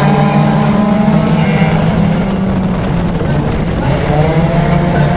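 Off-road race vehicles' engines running loud during a heat race, with a steady low drone and higher engine tones slowly rising and falling in pitch.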